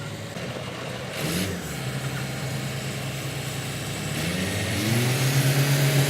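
A motor vehicle engine running, its pitch rising about a second in and again around four seconds in, then holding steady as it grows louder near the end.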